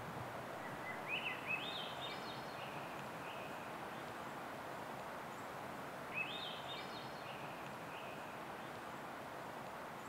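A songbird singing the same short phrase twice, about a second in and again about six seconds in: a few quick notes stepping up in pitch, then trailing off lower. Under it, a steady outdoor background noise.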